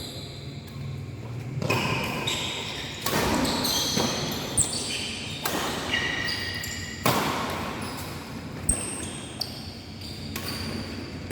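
Badminton rally: rackets striking the shuttlecock about every second or two, with short high squeaks of shoes on the court floor.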